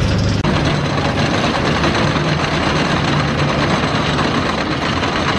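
Wickerman wooden roller coaster running, a loud, steady rattling rush of noise that starts abruptly about half a second in.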